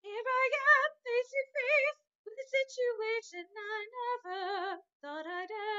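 A woman singing solo in a soprano voice, unaccompanied, with strong vibrato. The short sung phrases begin abruptly from silence and have clean silent gaps between them.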